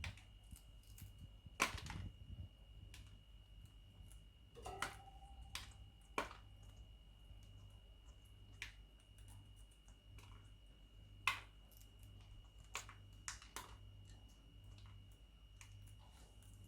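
Indian ringneck parrot nibbling broccoli: scattered, irregular sharp clicks of its beak biting and crunching, a dozen or so, over a faint steady hum and a thin high whine.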